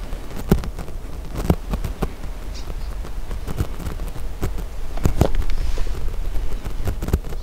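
Outdoor hillside ambience: a low wind rumble on the microphone with scattered, irregular sharp clicks and light taps.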